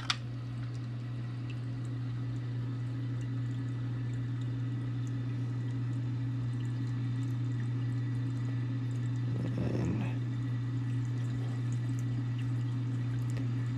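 Steady low hum of a running reef aquarium's equipment, with water moving in the tank. A brief splash comes right at the start as nerite snails are tipped in from a cup, and a short swish of water comes about ten seconds in.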